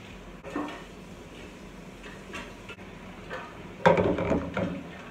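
Aluminium tube pan of melting sugar knocking and scraping on a gas stove's grate as it is swirled by hand. There is a louder clatter a little under four seconds in, as the pan comes down on the grate.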